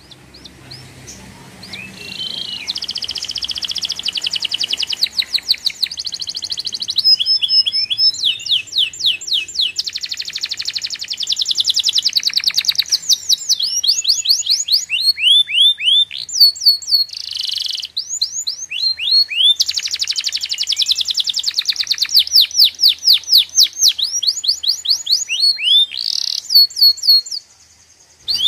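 A songbird singing a long, varied song of fast high trills and rapidly repeated chirping notes, with short breaks, stopping shortly before the end.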